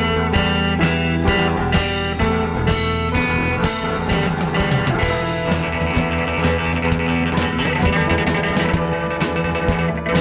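Rock music: guitar over drums.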